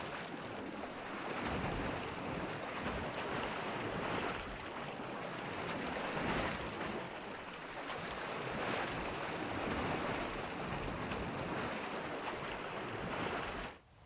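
Sea surf: waves washing in, rising and falling in slow swells every couple of seconds, cutting off suddenly near the end.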